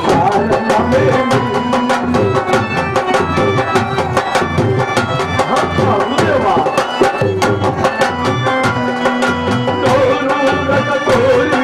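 Traditional Indian instrumental music: a hand drum playing a quick, steady rhythm under held melody notes.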